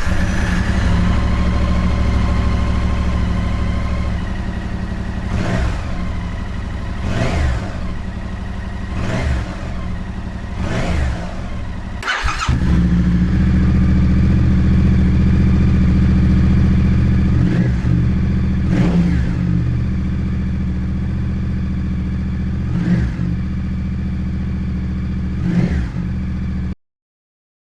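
Yamaha R7 parallel-twin engine on a new slip-on exhaust, running at idle and revved up and back down briefly again and again, about every two seconds. The sound cuts out for a moment about twelve seconds in.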